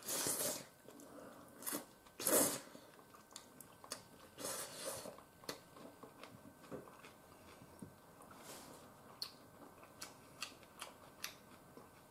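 A person slurping udon noodles three times in the first five seconds, then chewing, with small clicks.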